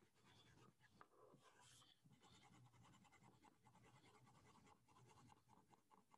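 Faint scratching of a crayon being stroked back and forth on paper, many quick strokes in a row, as an area of a drawing is colored in.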